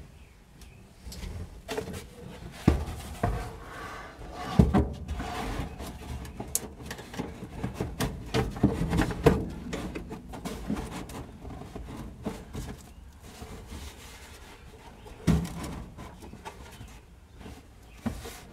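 Irregular knocking, tapping and rustling as a cardboard glove-box liner is worked into the metal glove-box opening of a 1949 GMC pickup's dash, with a few sharper knocks scattered through.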